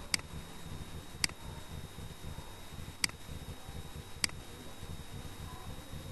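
Four sharp computer mouse button clicks spread over about four seconds, over a steady low hum and hiss.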